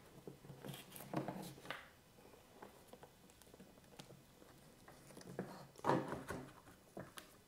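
Faint handling sounds of a plastic generator side cover being taken off and a screwdriver worked at the housing: soft scrapes and rustles with a few light clicks, the loudest cluster about six seconds in.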